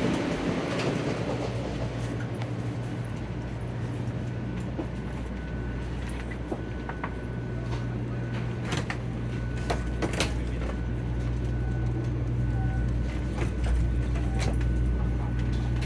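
Steady low hum inside a Shinkansen bullet-train passenger car standing at the platform, with scattered sharp clicks and knocks from passengers' luggage and movement.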